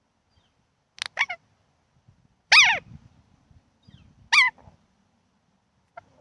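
A pet animal's short, high-pitched cries, each falling in pitch at the end: two quick ones, then two louder ones about two seconds apart.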